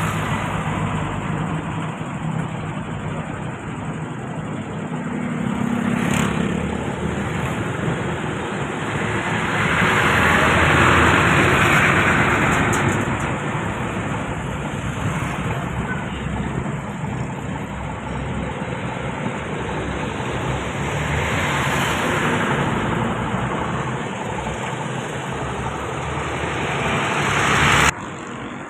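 Road traffic: motor vehicles going past steadily, with two louder swells as bigger vehicles pass about ten and twenty-two seconds in. The sound cuts off abruptly near the end.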